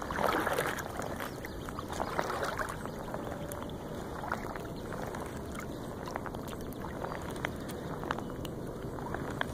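River water lapping and splashing, with small irregular splashes; a couple of louder splashes come right at the start and about two seconds in.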